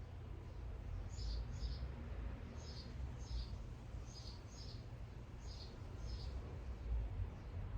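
A bird calling a short two-note chirp, repeated about every second and a half, over a steady low rumble.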